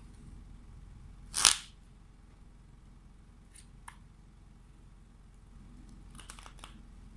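Handling noise: one short, loud swish about a second and a half in, followed by a few faint ticks and soft clicks near the end.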